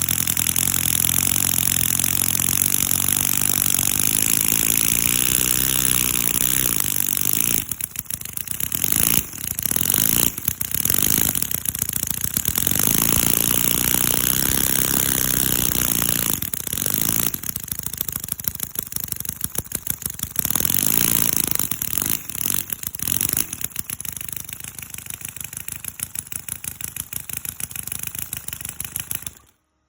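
CISON FG-VT157 miniature four-stroke V-twin engine running, revving up twice with its pitch rising, with brief throttle drops in between. It then runs lower and more unevenly until the sound cuts off abruptly near the end.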